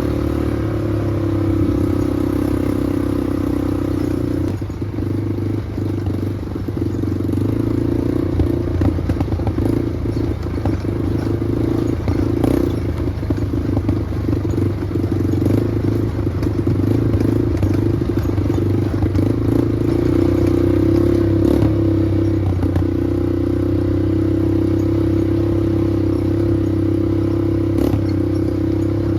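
Small off-road vehicle engine running steadily while being driven, with rattling and clattering over the middle stretch.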